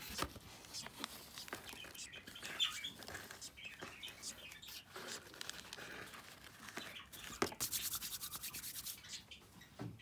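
Hands rustling and shifting the shredded-paper and feather bedding of a cardboard budgie nest box, with a quick run of rapid scratchy rustles a little over seven seconds in.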